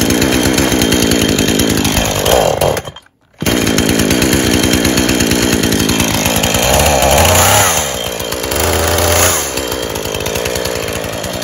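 Husqvarna two-stroke chainsaw engine running, breaking off briefly about three seconds in, then rising and falling in speed a few times.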